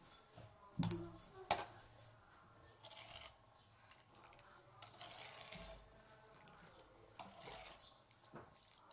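Two sharp clinks about a second in, from a small ceramic saffron jug and wooden spoon being handled. After that, soft scraping and swishing from a wooden spoon stirring liquid in an aluminium pot.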